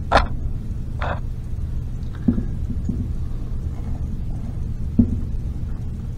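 Baker shift drum and shift parts of a Harley 5-speed transmission being handled as the drum is seated over its dowel pins: two short metal scrapes in the first second or so, then two light knocks. A steady low hum runs underneath.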